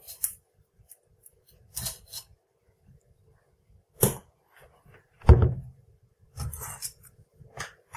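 Handling noise of a RAM stick being unlatched and pulled from a motherboard DIMM slot: a few separate plastic clicks and knocks, with one louder knock and thud about five seconds in.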